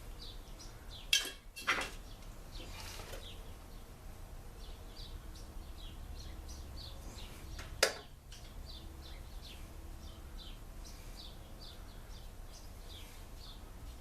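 Three sharp metallic clinks of small parts and tools being handled during leaf-blower engine reassembly, two close together about a second in and one near the middle, over birds chirping continually in the background.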